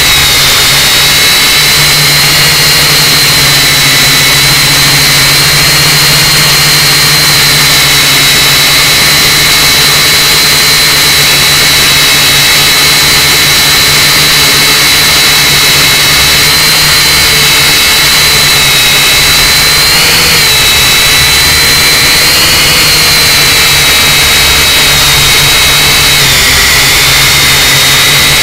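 Syma X5UC toy quadcopter's four brushed motors and propellers in flight, heard up close from a camera strapped to its body: a loud, steady high whine over a hiss of prop wash. The pitch wavers briefly a few times in the last third as the throttle changes.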